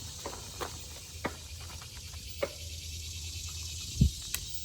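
Outdoor background with a steady high-pitched hiss and a low rumble, broken by a few light clicks and one low thump about four seconds in.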